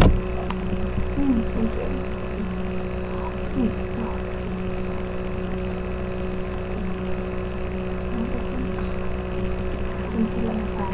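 A steady low hum with a constant rumble beneath it, and faint snatches of distant voices now and then.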